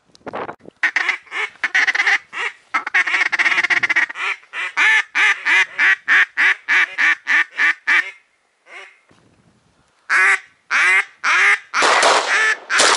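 Hen-mallard-style quacking: a long run of quick, loud quacks at about three to four a second, then after a short pause another run starting around ten seconds in.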